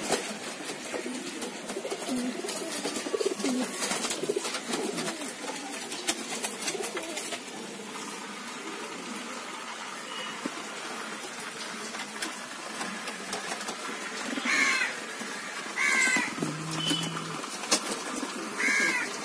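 Domestic pigeons cooing in their loft, with scattered clicks and knocks. Three short, higher calls come in the last few seconds.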